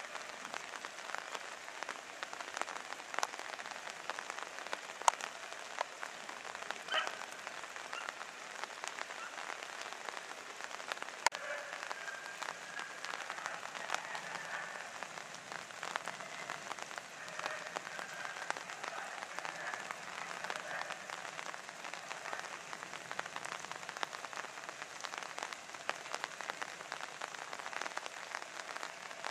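Steady crackling patter of rain, with scattered sharper drop clicks.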